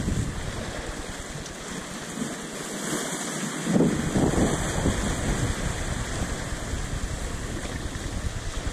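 Sea surf washing against a rocky shore, with wind buffeting the microphone; the rush swells briefly about four seconds in.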